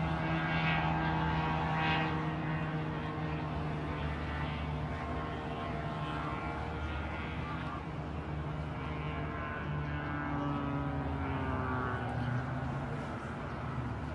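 Propeller attack drone's small piston engine buzzing as it flies past, a steady pitched hum with many overtones that drops a little in pitch about ten seconds in.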